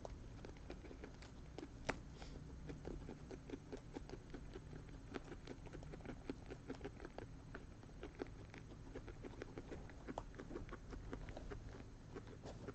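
Guinea pigs chewing corn kernels and hay: a steady run of small, quick crunching clicks, several a second, with one sharper click about two seconds in.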